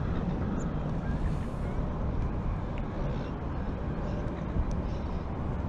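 Steady low outdoor rumble with a few faint small clicks.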